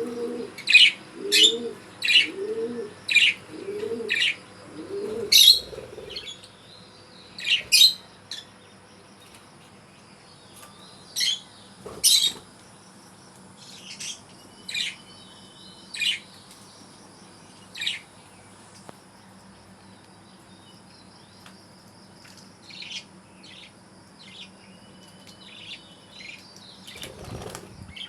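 Budgerigars chirping in short, sharp, high calls, coming quickly for the first eight seconds or so and then spaced a second or two apart. A low repeated call sounds beneath them for the first five seconds.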